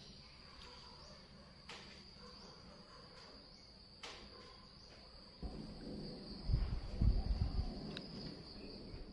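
Insects chirring in a steady high note, with a few short sharp chirps over it. From about five seconds in, a low rumbling noise on the microphone rises and becomes the loudest sound.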